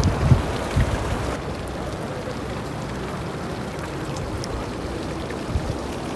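Shallow water running over river stones: a steady rushing hiss, with a few low bumps near the start.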